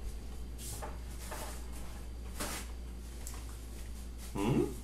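A man chewing a mouthful of shrimp aguachile, with a few faint wet mouth sounds over a steady low hum. Near the end he lets out a short hummed "mmm".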